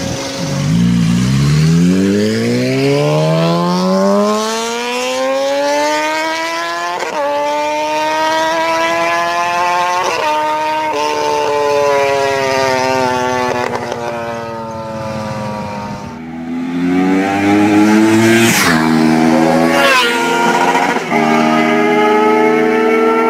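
Motorcycle engines at full throttle. One bike's engine note climbs steadily for several seconds and then holds high with a few brief dips. After a cut, another motorcycle runs hard, its note stepping up and down with two sharp rushing sweeps as it goes by.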